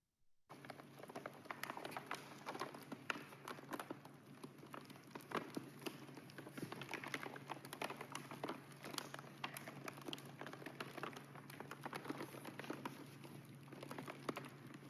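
Paint layer of a large painted textile banner crackling as the banner is rolled on its roll: dense, irregular clicks and crackles, starting about half a second in. Conservators listen to this crackle to judge the paint's condition during examination.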